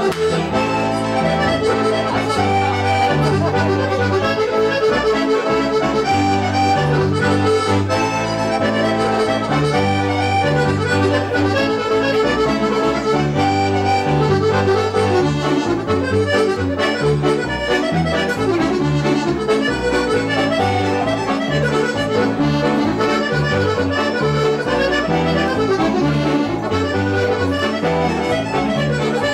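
Two piano accordions playing a reel together, the melody running over a steady rhythmic bass.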